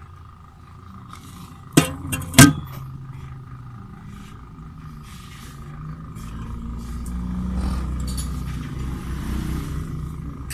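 Two sharp knocks about two seconds in, then a run of low rubbing and rustling as a black rubber sleeve is handled and worked over a car's driveshaft close to the microphone.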